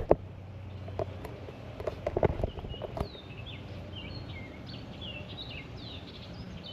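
A few sharp knocks and rustles in the first half, then a songbird singing a quick run of chirps and falling whistled slurs through the second half.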